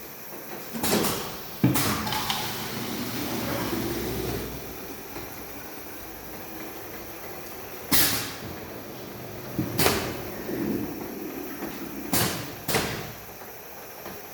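Chemical filling machine working through its cycle: a series of sharp hissing bursts with clunks, about six in all, and a steadier run of machine sound between about two and four and a half seconds in.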